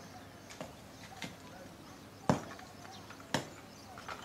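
Four sharp knocks at irregular intervals, the loudest a little past the middle.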